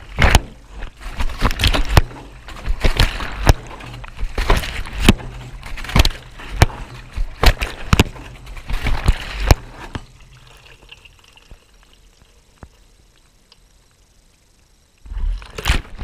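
Wet laundry and water sloshing as a Miele front-loading washing machine's drum turns, with sharp knocks about once or twice a second as the load tumbles. The knocking stops about ten seconds in, leaving quieter water sounds, and a short loud burst of tumbling comes near the end.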